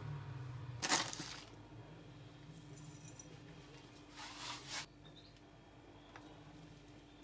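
Small food-prep handling sounds at a glass mixing bowl: a brief clatter about a second in, then a short gritty pour a little after four seconds as salt is tipped in from its carton, over a faint steady hum.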